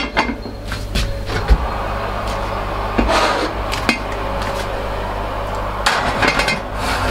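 Oven door opened, then a heavy lidded casserole dish set onto the oven's wire rack, with several sharp knocks and rattles of the dish against the metal shelf, the busiest cluster near the end.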